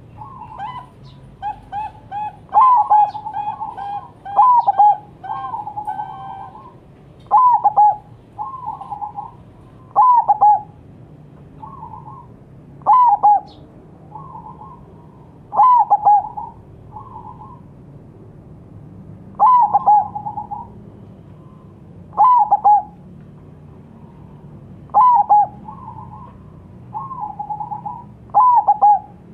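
Zebra dove (perkutut) cooing: its soft, staccato phrases repeat every two to three seconds, the louder ones starting with quick falling notes.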